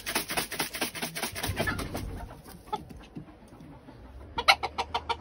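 Bantam hens clucking and squawking in agitation, a flock squabble: a quick run of short sharp calls over the first two seconds, then a burst of about six more near the end.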